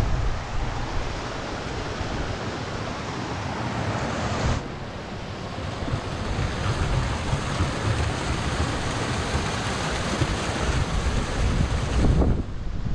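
Water rushing down small gritstone cascades and a waterfall into plunge pools on the River Dane, with wind buffeting the microphone. The high part of the rushing sound thins about four and a half seconds in.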